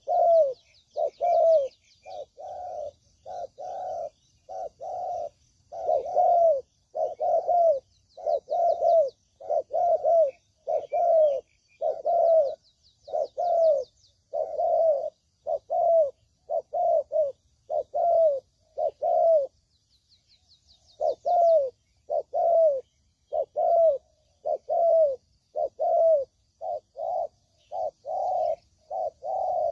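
Spotted dove (tekukur) cooing over and over, used as a lure call to draw in wild doves. The notes come a little under one a second, with a short break about two-thirds of the way through, and faint high twittering of small birds runs above them.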